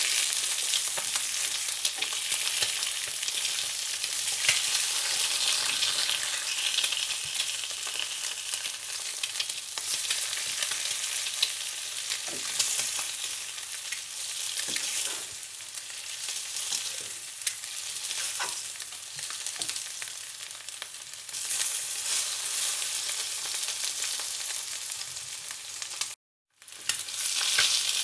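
Food frying: a steady high sizzle with scattered crackles and pops, cutting out for a moment near the end.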